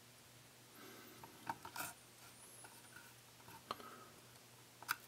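Faint clicks and light scraping of a small screwdriver driving a self-tapping screw into an HO-scale boxcar's plastic coupler box, with a few sharp ticks scattered through it.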